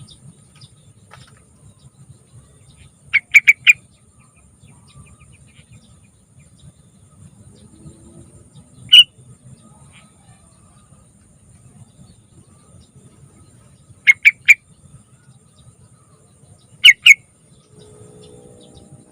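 Yellow-vented bulbul (trucukan) calling in short bursts of clear, bubbly chirps: a quick run of four notes, a single note, then three and two, over a faint steady high-pitched whine.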